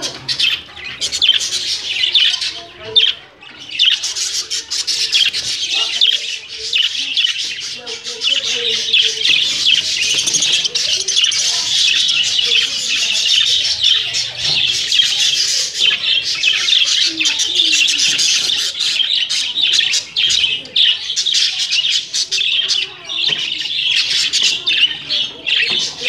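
Many budgerigars chattering and chirping at once, a steady high-pitched chorus that never lets up.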